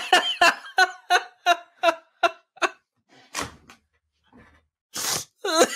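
A man laughing hard: a quick run of about eight short 'ha' bursts over the first three seconds, then breathy gasps for air later on.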